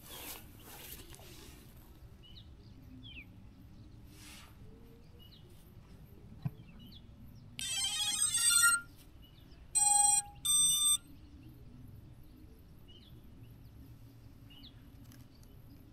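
Electronic startup tones from an FPV quadcopter powering up: a short run of bright tones, then two separate beeps about a second later.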